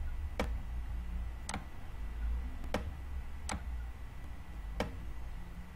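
Five sharp clicks about a second apart from the input device used to draw digits on screen, one pair for each zero drawn, over a steady low hum.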